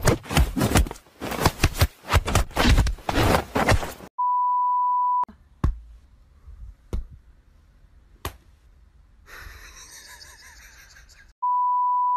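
Rapid wooden clatter and knocking from a whack-a-mole cat toy box as a kitten bats at its pop-up moles, for about four seconds. Then a steady high test-tone beep lasting about a second, a few single sharp taps and a soft rustle, and the same steady test-tone beep again near the end, the tone that goes with colour bars.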